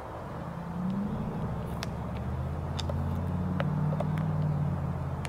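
A vehicle engine running, rising in pitch about a second in and then holding steady as it gets slightly louder, with a few faint clicks over it.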